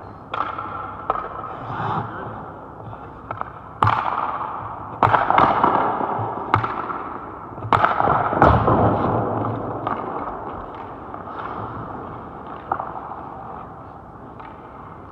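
Ice hockey shots: about six sharp cracks of sticks striking pucks and pucks hitting the goalie's pads and the boards, clustered in the middle and echoing in the rink, with skate blades scraping the ice between them.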